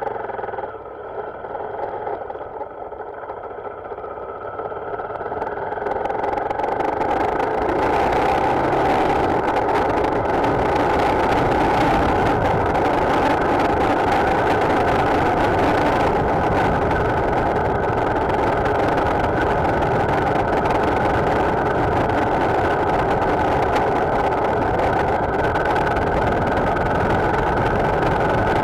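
Motorcycle engine running, getting louder between about four and eight seconds in as the bike gets under way. Wind noise on the microphone then holds steady over the engine.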